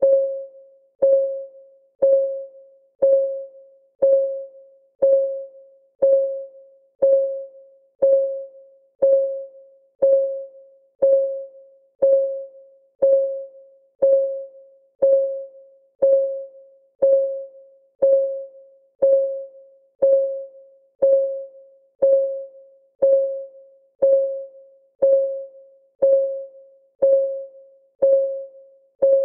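Clock ticking sound of a countdown timer: one short pitched tick each second, each fading quickly, at an even steady pace.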